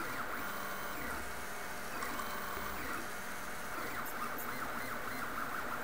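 MendelMax 1.5 3D printer running, its stepper motors buzzing and whining at pitches that shift every second or so as the axes change speed and direction.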